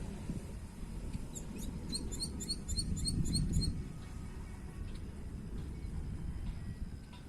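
A small bird calling a quick series of about ten short, high chirps, roughly four a second, over a low rumble that swells briefly near the middle.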